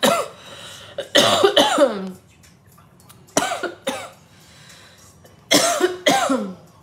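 A person coughing in four separate bouts a second or two apart.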